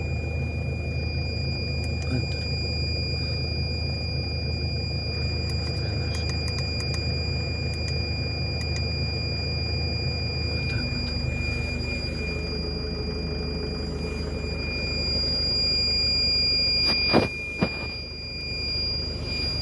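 BAW Fenix dump truck's diesel engine idling, warming up just after a cold start, heard from inside the cab, with a steady high-pitched whine over the engine hum. The engine note shifts about eleven seconds in, and there are a couple of sharp knocks near the end.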